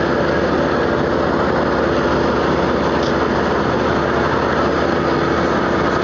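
Drilling rig machinery running steadily: a loud, unbroken engine drone with a constant hum.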